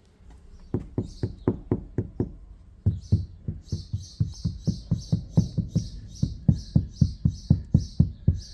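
Music with a fast beat of heavy low drum hits, about four a second, played through a car door speaker whose door has just been lined with sound-deadening sheet. A hissing cymbal pattern joins about three and a half seconds in.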